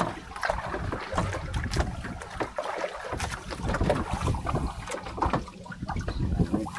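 Water and wind noise around a small fishing boat at sea, with irregular knocks and handling sounds.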